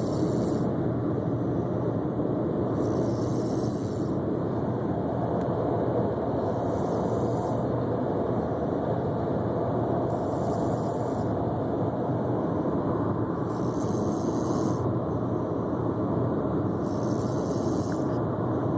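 A girl snoring, one slow breath about every three and a half seconds, over a steady low rumble that is the loudest thing heard.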